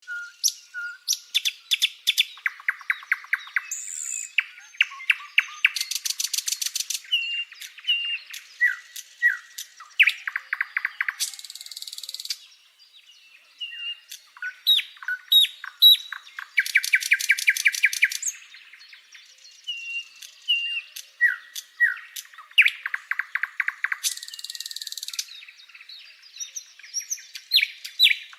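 Birdsong: a steady run of chirps, short whistled notes and fast trills, with a brief lull a little after twelve seconds in.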